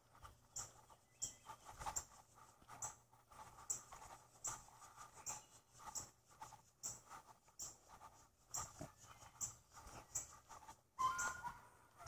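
Footsteps of someone walking across a grassy lawn, a soft swishing step about twice a second. Near the end a brief high whine is heard.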